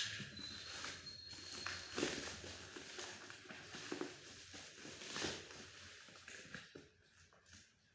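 Packaging being handled: irregular rustling and light knocks, several short scrapes a second or two apart.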